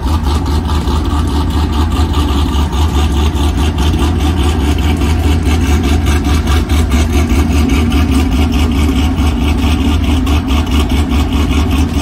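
Supercharged Pontiac G8 GT V8 engine running steadily at idle, a loud, even pulsing exhaust note heavy in the low end.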